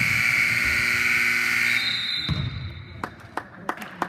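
Gym scoreboard buzzer sounding loudly and cutting off abruptly about halfway through. Near the end a basketball is bounced on the hardwood floor several times in quick succession.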